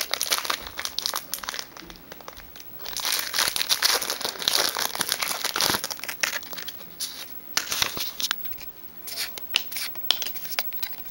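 Foil booster pack wrapper crinkling and tearing as it is opened, in irregular bursts with short pauses.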